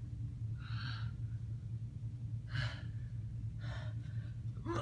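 A person breathing hard: four audible breaths roughly a second apart, over a steady low hum.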